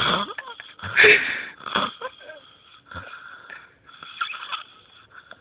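A man snoring loudly in his sleep: a run of loud snores about a second apart over the first three seconds, then weaker breaths.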